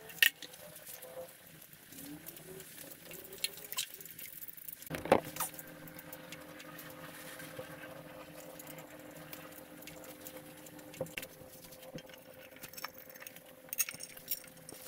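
Scattered metal clicks and knocks of hand tools and engine parts being handled during assembly of a Volvo TD100 diesel engine, with a sharp knock near the start and a louder one about five seconds in. A faint steady hum sits behind for much of it.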